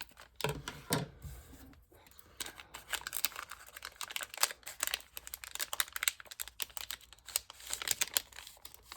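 Wrapper of a baseball card pack crinkling and tearing as it is pulled open by hand, a dense run of sharp crackles.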